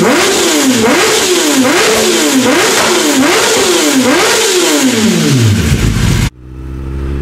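Kawasaki ZX-10R inline-four through an Akrapovic full-system exhaust, revved in about six quick throttle blips a little under a second apart, the last one falling away slowly. About six seconds in the sound cuts off abruptly and a steadier engine note follows.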